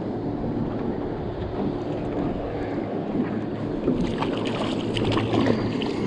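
Wind noise on the microphone over a steady low hum, with a run of small clicks over the last two seconds or so.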